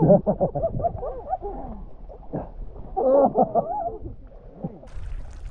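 Galapagos sea lions barking: a bout of calls at the start, another about three seconds in and a shorter one near the end.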